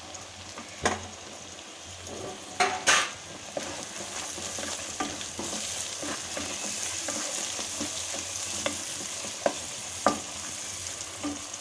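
Chopped tomato frying with onion and spice masala in a hot pan, the sizzle growing after a loud clatter about three seconds in, with a spatula knocking and scraping the pan every second or two.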